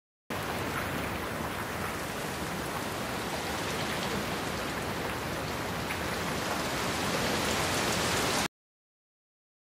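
Steady rain falling on a lawn: a dense, even hiss with fine drop ticks. It starts a moment in and cuts off suddenly about a second before the end.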